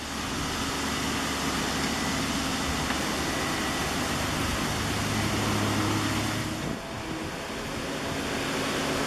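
Diesel engine of heavy earthmoving equipment running steadily with a noisy hiss over it. The engine note strengthens about five seconds in, as under load, then eases off near seven seconds.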